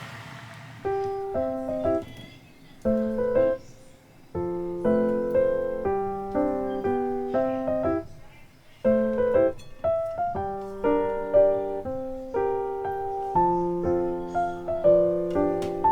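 Background piano music: a light melody over chords, played in short phrases with brief pauses between them.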